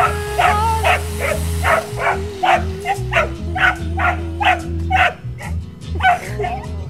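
Young dog barking repeatedly, about three short barks a second, with a brief pause about five seconds in.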